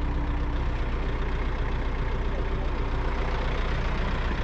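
A heavy engine idling steadily.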